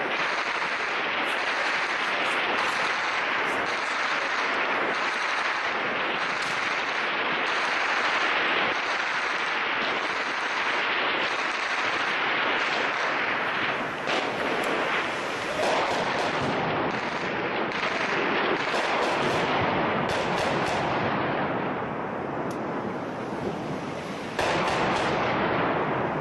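Gunfire during a firefight: many sharp cracks scattered through a steady rushing noise on a helmet-mounted camera's microphone.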